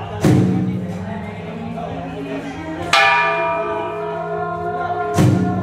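A bell struck three times, roughly every two and a half seconds, each strike left ringing and fading with several tones.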